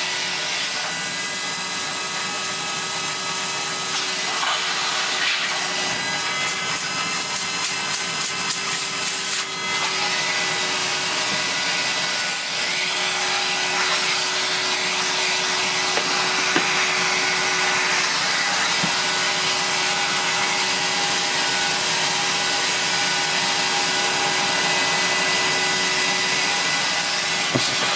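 Vacuum cleaner motor running steadily with a constant whine over rushing air as its nozzle sucks dust out of a bagless upright vacuum; the airflow sound shifts now and then as the nozzle moves over the parts.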